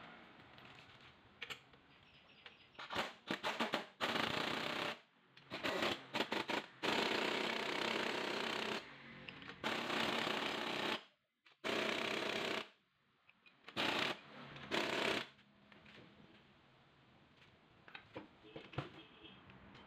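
Pneumatic impact wrench hammering on the nuts of a shock-absorber strut held in a coil spring compressor, in about seven bursts of one to two seconds with short taps in between.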